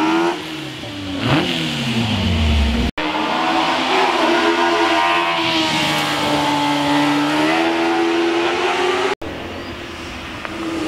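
Seven-style sports hillclimb car's engine revving hard as it accelerates up the hill. It passes close by in the middle, its note climbing steadily, then is heard fainter and farther off near the end.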